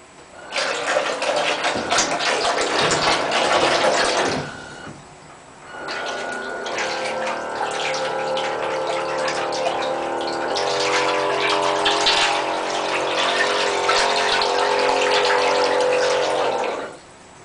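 Small electric bilge pump driving a homemade submarine's water-jet thruster in bathtub water: the motor hums and its jet gushes and splashes. It runs for about four seconds, stops briefly, then starts again about six seconds in and runs steadily before cutting off suddenly near the end.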